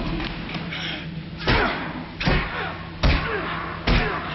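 Blows landing in a fistfight: four heavy thuds a little under a second apart as a man is struck and slammed against a bathroom stall partition.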